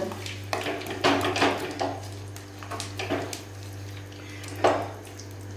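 A metal spatula scraping and clinking against an aluminium kadhai while stirring jaggery melting in ghee: a few irregular knocks, the loudest near the end. A steady low hum runs underneath.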